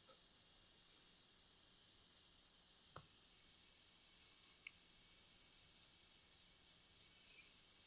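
Mechanical pencil scratching on sketchbook paper in short, quick strokes, about three a second, faint. A single sharp click about three seconds in.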